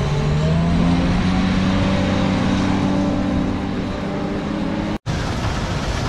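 Case IH Axial-Flow combine running steadily with a low engine drone while it unloads corn into a semi grain trailer. The sound drops out for an instant about five seconds in.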